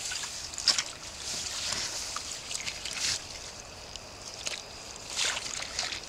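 A hand sloshing and splashing in a shallow puddle of muddy water in a hole, groping for a buried iron marker, with a few irregular splashes.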